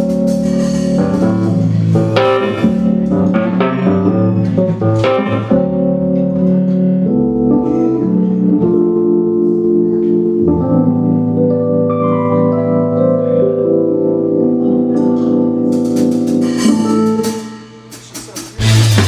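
Band music: guitar with drums, long held notes over a steady low bass line. It drops away briefly near the end, then a loud full-band section comes in.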